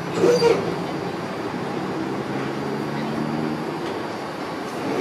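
Classic high-floor Duewag-design tram standing at a stop, giving a steady low hum, with a brief burst of voices about a third of a second in.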